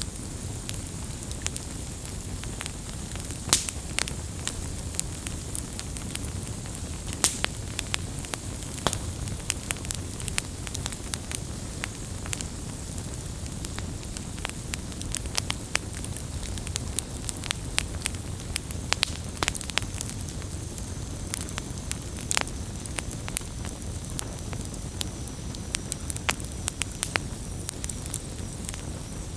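Wood campfire burning, with a steady low rumble of flames and frequent sharp, irregular pops and crackles of the burning wood.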